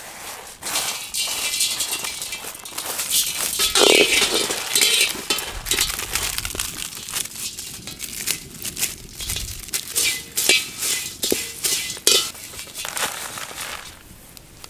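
Whole spices (cinnamon sticks, cloves and green cardamom pods) poured from a bamboo winnowing tray into a dry iron kadai and dry-roasting in it, with a dense rattling and clicking. A brief falling tone cuts in about four seconds in.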